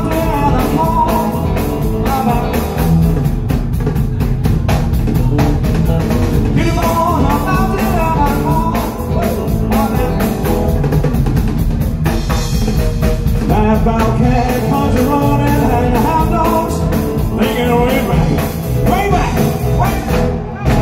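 Live rock and roll band playing with a male singer: vocals over drum kit and electric guitar. The music breaks off for a moment near the end.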